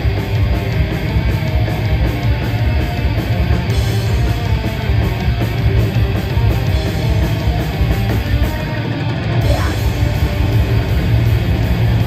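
A heavy metal band playing live: distorted electric guitars, bass and drums at full volume. About three-quarters of the way through, the low end and cymbals drop out for roughly a second before the band comes back in.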